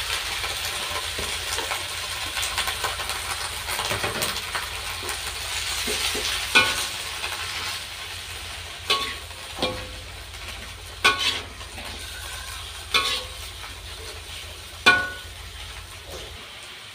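Spinach and carrot stir-frying in hot oil in a pan, a sizzle that slowly dies down as the greens are stirred. About seven sharp clinks of the stirring utensil against the pan come in the second half.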